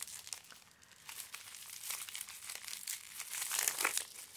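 Clear plastic wrapping around a small tube crinkling as it is handled and turned over, in irregular crackles that grow denser after about a second.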